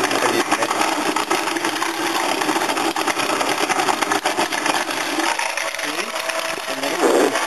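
Old Oster electric ice crusher running and crunching ice cubes into crushed ice: a dense, continuous stream of cracks and crunches.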